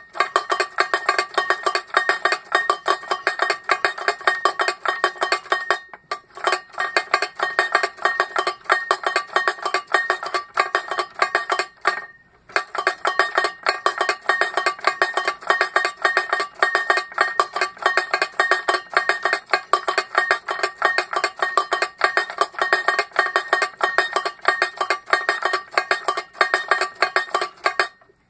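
Hand-cranked automaton drummer beating a tin-can drum with a mallet: a rapid, uneven stream of metallic strikes with the can ringing at the same pitches throughout, pausing briefly twice, about 6 s and about 12 s in.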